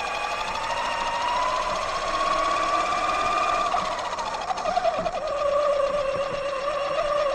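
Axial Yeti XL RC truck's electric motor and geared drivetrain whining as it drives. The pitch rises as it speeds up, drops about halfway through as it slows, and climbs again near the end, with a few light ticks about five seconds in.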